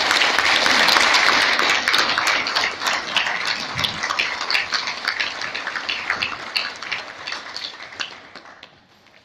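Audience applauding, many hands clapping at once, loud at first and then thinning out and dying away about eight seconds in.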